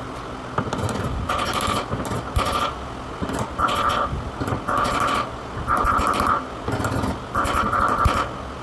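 A woodworking power tool's motor sounding in short repeated bursts, about one a second, each with a steady high-pitched whine.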